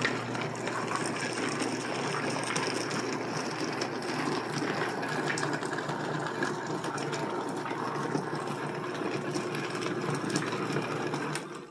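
A row of rotary rock tumblers running, Thumler's Tumbler machines among them: a steady motor hum with the rocks and media churning and ticking inside the turning barrels. The sound cuts off near the end.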